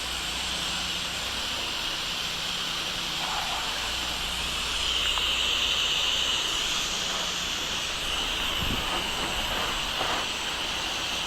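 Pressure washer spraying a steady water jet through an M5 twist nozzle, a continuous hiss that swells a little in the middle, over the low steady hum of the machine's engine.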